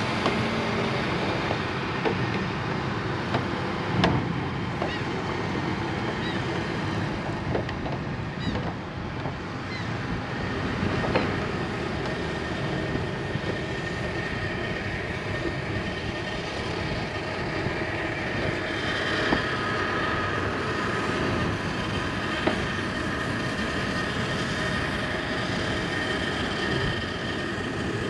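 Steady wind rumble and hiss on the camera's microphone, with a few sharp knocks.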